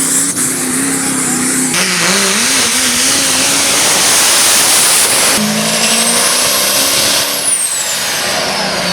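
Loud diesel truck engines revving, in short clips that change abruptly about two and five seconds in. A high whistle rises and then falls in the second half.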